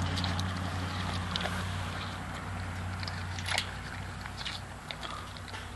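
Goats biting and chewing watermelon held in a hand, with scattered crisp crunches and clicks, the clearest about three and a half seconds in, over a steady low hum.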